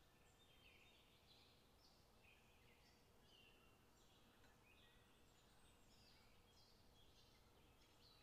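Near silence, with faint birdsong: short high chirps repeating throughout.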